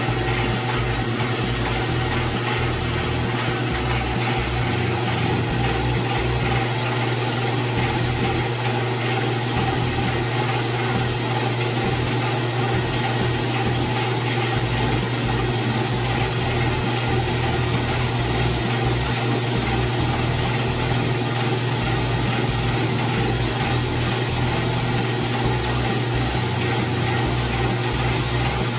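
Small electric screw oil press running steadily as it presses cacao nibs: a constant low motor hum with no change in speed or load.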